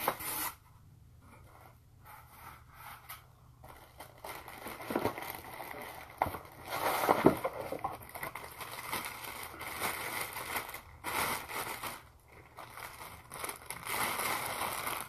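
Packaging being handled and unwrapped: irregular rustling, crinkling and scraping with small knocks, coming in fits and starts and growing busier a few seconds in.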